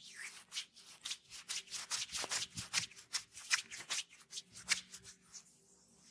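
Hands rubbing in quick massage strokes, a rapid run of brushing, rustling swipes several times a second, busiest in the middle and easing off near the end.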